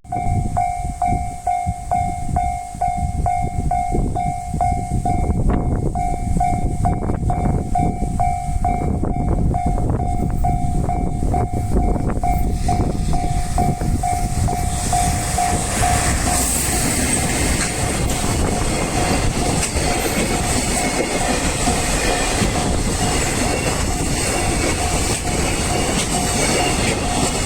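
Japanese level crossing warning bell ringing in an even beat, about two strikes a second. About halfway through, a train passes over the crossing with a rising rumble and wheel clatter, and the bell keeps ringing underneath.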